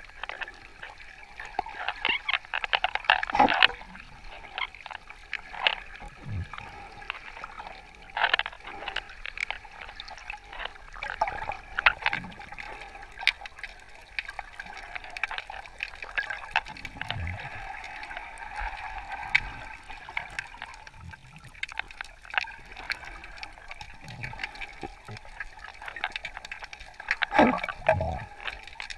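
Underwater sound picked up by a camera while snorkeling: a steady watery hiss with many scattered clicks and crackles, plus a few brief low swooshes of moving water.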